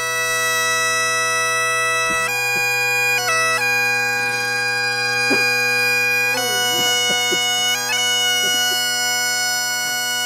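Great Highland bagpipes playing a slow tune: a steady drone under a melody of long held notes that change in steps, with quick grace notes between some of them.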